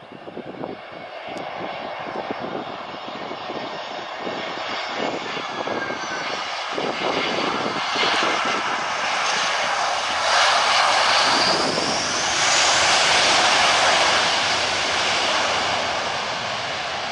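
Airbus A320-214's CFM56 turbofan engines passing close as the jet lands: a broad jet roar with a faint whine, growing steadily louder through touchdown and loudest during the rollout, then easing slightly near the end.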